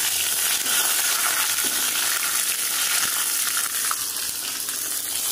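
Curry leaves, cinnamon, cloves and cardamom sizzling steadily in hot fat in a small steel tempering pan, a spice tempering (tadka) for a salna.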